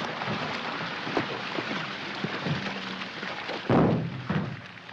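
Steady splashing hiss of water as two people scuffle on soaked pavement, with one heavy thud a little under four seconds in.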